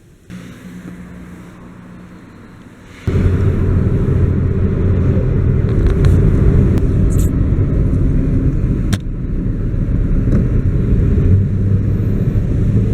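A motor vehicle's engine rumbling loudly and steadily with a low hum. It comes in abruptly about three seconds in, after a quieter stretch of background noise.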